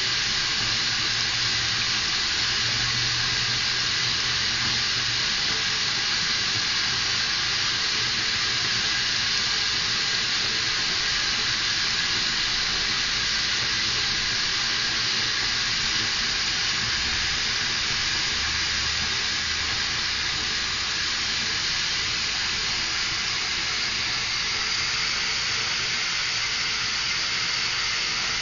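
Steady, even hiss of running water in a bathtub.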